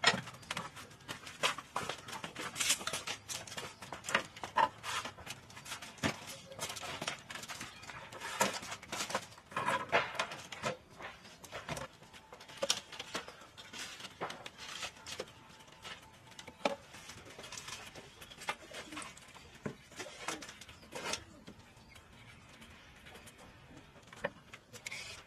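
Irregular clicks, knocks and scrapes of hands at work: a wooden ladder being climbed, then a knife peeling a green fruit and the fruit being handled.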